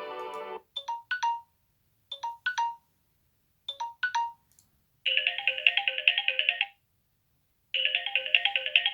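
Samsung Galaxy Note8 built-in ringtones playing. A musical ringtone cuts off about half a second in. Three pairs of short, falling electronic beeps follow, then a rapid trilling electronic ring sounds twice.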